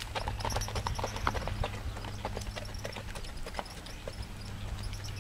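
Hooves of a Tennessee Walking Horse striking a gravel road as it gaits, a quick run of uneven clip-clop beats over a low steady hum.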